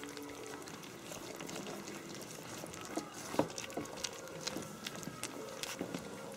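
Three-week-old puppies lapping and licking soft food from a ceramic dish, at their first solid meal: irregular small wet clicks and smacks, with one louder click a little over three seconds in.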